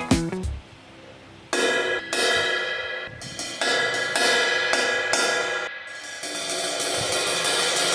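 A 19-inch Mosico Modern Series crash cymbal struck repeatedly, a crash every half second to a second, each hit ringing on in a bright, shimmering wash. The strikes begin after a short quiet gap about a second and a half in.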